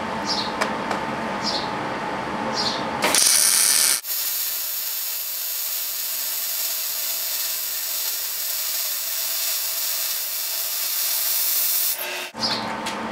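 MIG welding arc striking about three seconds in, louder for its first second, then sizzling steadily for about eight seconds before it cuts off near the end: a bead laid joining a quarter-inch steel bearing flange to 16-gauge steel plate.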